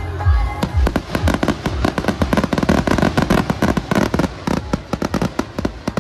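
Rapid barrage of fireworks bangs, several a second, starting about a second in, with music playing underneath.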